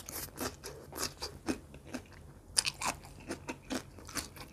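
Close-miked crunchy chewing of crisp raw vegetables: irregular loud crunches, about two or three a second.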